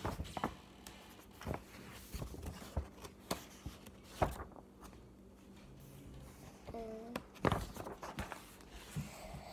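Scattered taps, bumps and rustles of a hardcover picture book being handled close to the microphone, with a short hum from a child's voice about seven seconds in.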